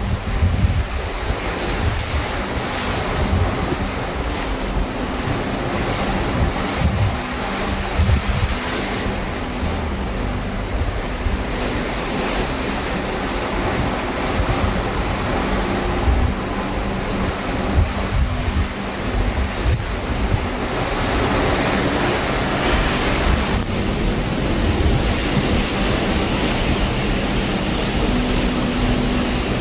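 Ocean waves rushing steadily at sea, heard from aboard a cruise ship, with wind buffeting the microphone. The rush grows a little louder and brighter about three-quarters of the way through.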